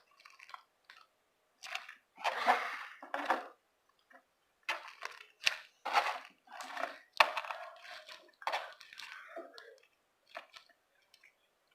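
Slime being squeezed and stretched by hand, making short, irregular squishing noises with brief gaps between them.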